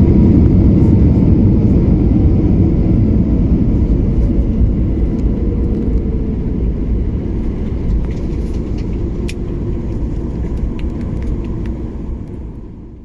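Boeing 737-8200 airliner rumbling with engine and rolling noise that slowly dies down as the aircraft slows after landing, a faint engine tone falling in pitch.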